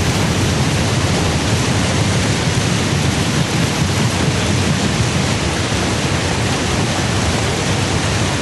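A loud, steady rushing noise with no tone or rhythm, spread evenly from a low rumble up to a hiss.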